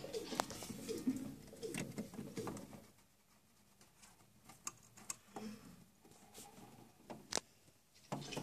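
A hamster's claws clicking and tapping on the hard plastic of a toy van, a few sharp separate clicks. For the first two and a half seconds there is also a soft, low, wavering cooing sound.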